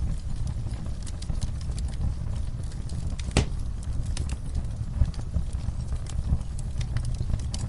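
Wood fire in a fireplace crackling, with scattered small pops and one louder crack about three and a half seconds in, over a low steady rumble.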